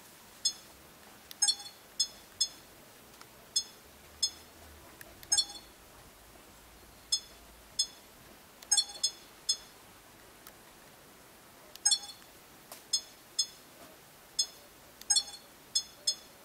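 Sony HDR-AS30V action camera beeping as its PREV and NEXT buttons are pressed to step through the menu: one short, high beep confirms each press. About twenty beeps come at irregular intervals, a few in quick pairs.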